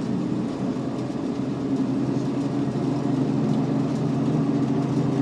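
1967 Ford Mustang's 302 V8, with dual exhaust through Flowmaster mufflers, running steadily under way, heard from inside the cabin; a little louder in the second half.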